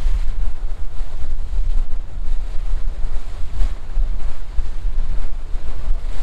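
Wind buffeting the microphone over the steady rush and splash of water churning along the hull of a 44-foot Marine Trader trawler under way.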